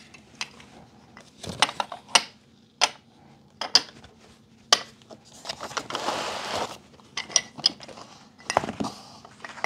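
Cast bismuth-lead-tin low-melt solder ingots clinking and knocking against one another as they are handled and stacked. A dozen or so sharp, irregular clinks, with a brief rustling scrape a little past the middle.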